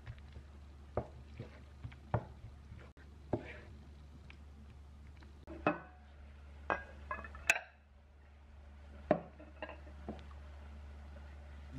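Scattered knocks and clinks of kitchenware, about one a second. First a wooden spatula taps and scrapes in a frying pan, then a ceramic bowl clinks against a china plate, with the sharpest clink about two-thirds of the way through. A low steady hum runs underneath.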